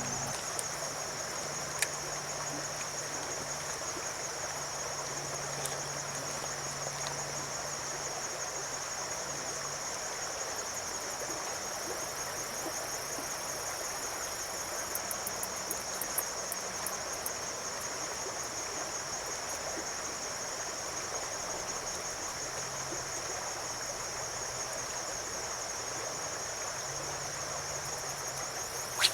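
Steady high-pitched trilling of insects, with a faint, even rush of creek water beneath it and a few light ticks.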